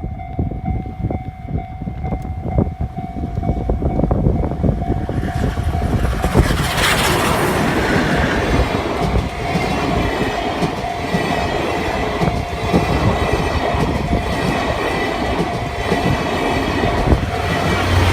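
C57 180 steam locomotive passing a level crossing: the engine's loud rush arrives about six seconds in, followed by its coaches' wheels clattering over the rail joints. A steady level-crossing warning tone sounds underneath throughout.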